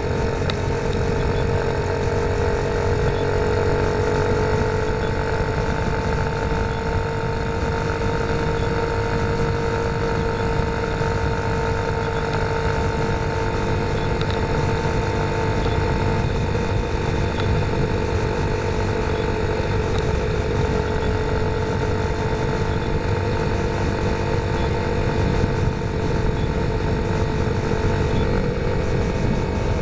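Motorcycle engine running at a steady cruising speed, its note holding nearly constant, over a rushing noise from the ride.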